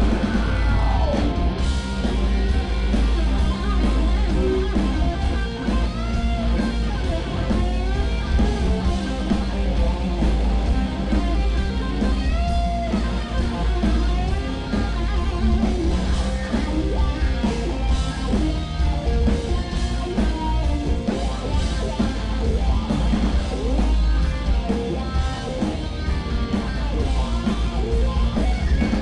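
Rock band playing live, with guitar and drum kit over a heavy bass, steady and loud throughout.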